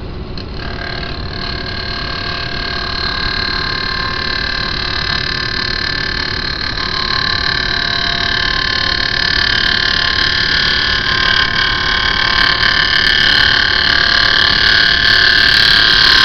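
Wood lathe spinning a vase at just over 2000 rpm while a hand-held turning tool cuts into it, a steady scraping hiss with a whine that grows gradually louder. The tool is reshaping the vase, cutting through its old black ebonizing lacquer to bare wood.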